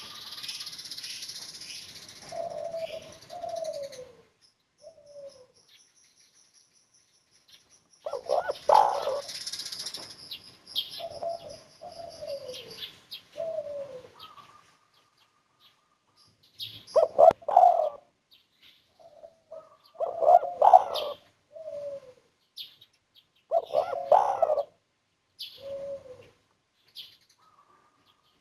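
Spotted dove (tekukur) cooing in three bouts of its song, each a run of short, falling coo notes with stronger accented notes, the 'kuk 1' song style. Thin high chirps of smaller birds sound alongside.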